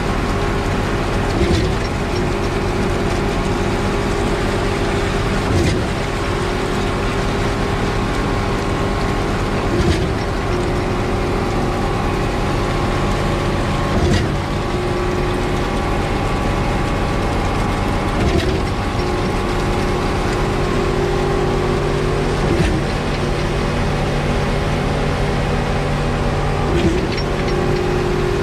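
Concrete pump and mixer truck running steadily at the hopper while concrete pours in. A short knock comes about every four seconds, seven times, with the pump's strokes changing over.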